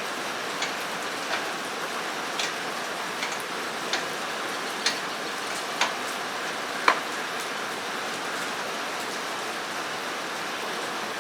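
Steady rain falling on a metal roof, with scattered sharp ticks roughly once a second, the loudest about seven seconds in.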